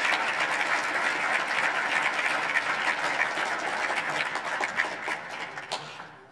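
Audience applauding, dense clapping that dies away near the end.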